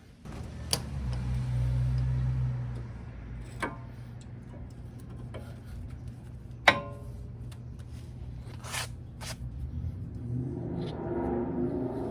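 Sharp metallic clinks of tools on metal brake parts, a few seconds apart, one ringing briefly, over a steady low hum that is loudest in the first few seconds.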